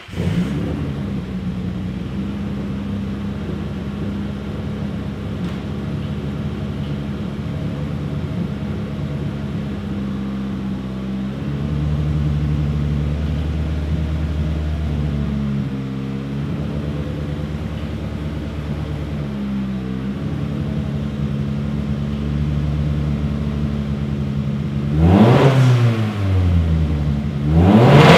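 Nissan SR20DET four-cylinder turbo engine in a 1973 Datsun 240Z catching on the start and settling into a steady idle. It is blipped twice near the end, the revs rising and falling quickly each time.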